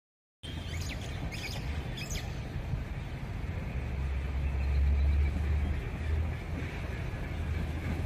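A small bird gives three short, high chirps in quick succession in the first couple of seconds, over a steady low rumble that grows louder around the middle.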